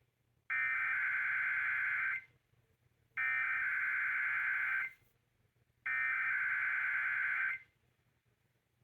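Emergency Alert System SAME header: three bursts of raspy two-tone digital data warble, each about a second and a half long, with a second of silence between them, sent by a radio station at the start of an EAS test.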